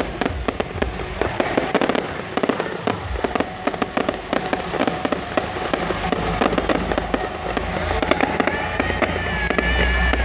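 Loud music with heavy bass from a big outdoor sound system, under a dense run of irregular crackling pops; near the end a high held melody comes through.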